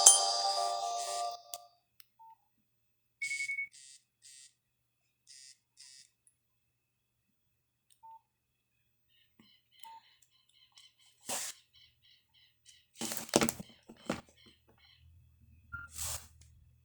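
A Nokia 5130 XpressMusic ringtone dies away in the first second and a half, followed by scattered short phone beeps and clicks. Several louder knocks come near the end.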